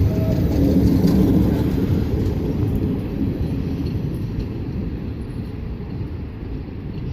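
Passenger train running on the tracks, a low steady rumble that slowly fades.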